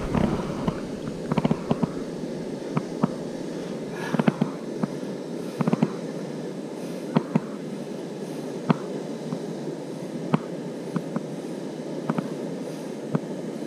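Water sloshing and small splashes with scattered sharp clicks and knocks at irregular intervals, as a large rainbow trout is held in the shallows and released by hand.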